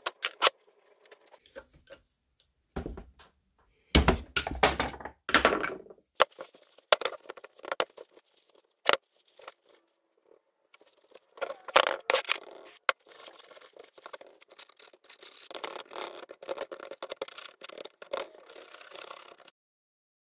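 Stripped Vespa Rally 200 engine crankcase and tools handled on a workbench: a series of knocks and clicks, then several seconds of scraping and rustling that stops shortly before the end.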